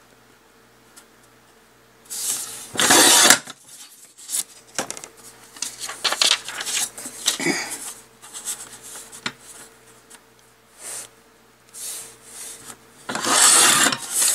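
Paper trimmer's blade carriage slid along its rail, cutting through a card panel: two rasping strokes of about a second each, one about two seconds in and one near the end, with lighter rustling and handling of the paper between.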